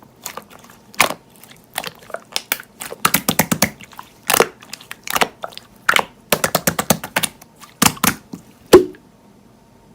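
Slime being squeezed and pressed by hand, making a run of sharp clicks and pops, some in quick clusters, stopping about nine seconds in.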